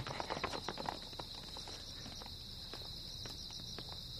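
Crickets chirping steadily, with a quick run of footsteps on a hard floor in the first second or so that thins out to a few scattered steps.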